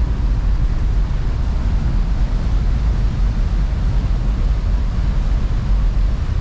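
Strong wind buffeting the microphone on the deck of a moving ferry, a steady deep rumble with no breaks.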